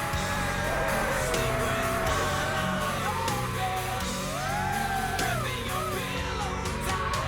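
Background music: a rock song with sung vocals over guitar and a steady beat.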